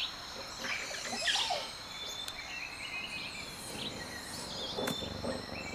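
Quiet outdoor ambience: faint short bird chirps over a thin, steady high tone.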